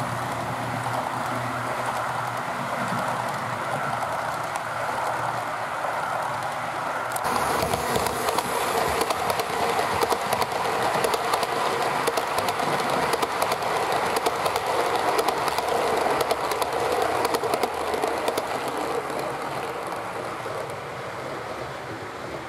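Model train running on the layout track: a steady whir of wheels and motor. About seven seconds in it gets louder, with rapid clicking of the wheels over the rail joints, then eases off near the end.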